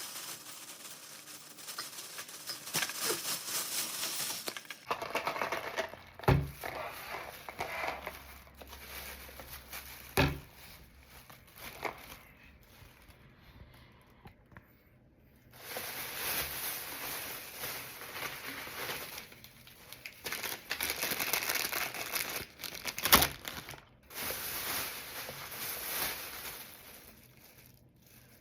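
Crinkling and rustling of packaging being handled, in stretches, with a few sharp knocks.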